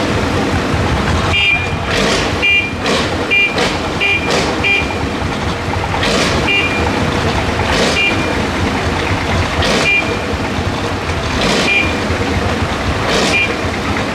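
Old stationary engine mounted on a truck bed, running and firing with sharp exhaust bangs. There are several in quick succession about two seconds in, then one about every two seconds. Each bang carries a short high ring over the steady engine running.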